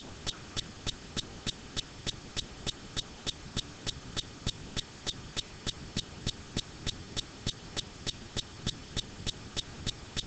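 Even, steady ticking, about three ticks a second, quiet under a faint background hiss.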